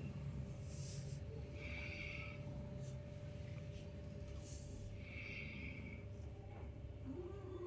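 Kittens wrestling on a rag rug, faint soft scuffles over a steady low hum, with a short arching cat call near the end.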